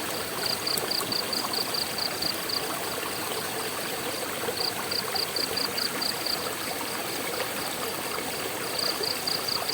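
Steady rush of flowing water. Over it, a high chirp repeats about five times a second in three short runs.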